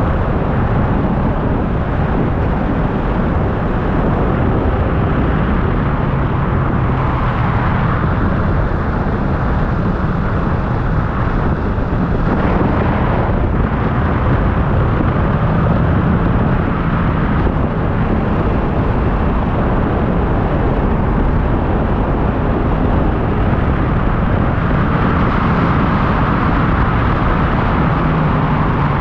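Wind rushing over the microphone of a motorcycle riding at about 50 mph, with the bike's engine running steadily underneath.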